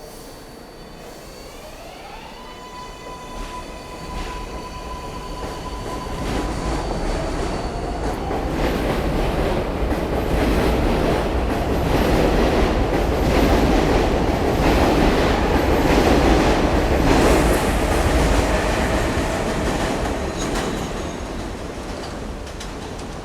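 R142A subway train pulling out of the station: its electric propulsion whines upward in pitch over the first few seconds and then holds. The rumble of wheels on rail, with clickety-clack over the joints, builds to a peak as the cars pass and fades as the train leaves.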